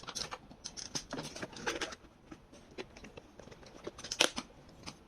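Irregular sharp clicks and light knocks, with one louder knock about four seconds in.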